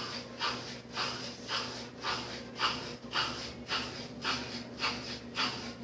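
Brastemp washing machine's motor droning as it tries to start but doesn't turn: a steady electrical hum with a rhythmic rasp about twice a second, while the drain pump runs. The stalled motor is the sign of a fault the technician traces to a swollen motor capacitor.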